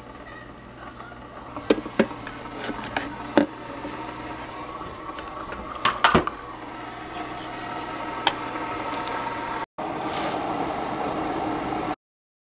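Kitchenware being handled: a ceramic mug and plastic measuring cups knock and clink against shelves and counter several times, over a steady appliance hum and a rushing noise that slowly grows louder. The sound cuts off abruptly near the end.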